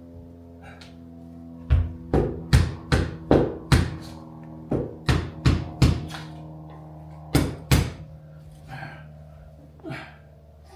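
Sharp knocks in quick runs, six, then four, then two, with a few fainter ones near the end, as chrome trim is tapped into the rubber seal of a Jaguar Mk2's rear window. A steady hum of several tones lies underneath.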